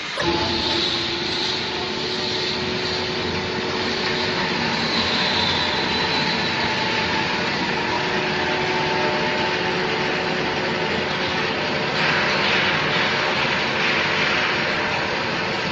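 Microwave vacuum dryer running: a steady mechanical rushing noise with a few steady humming tones, which jumps louder suddenly as something switches on right at the start and grows a little brighter about twelve seconds in.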